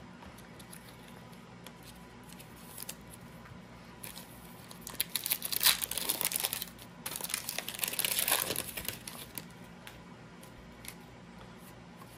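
Foil trading-card pack wrapper crinkling and tearing as it is ripped open by hand, in two spells of about two seconds each, around the middle.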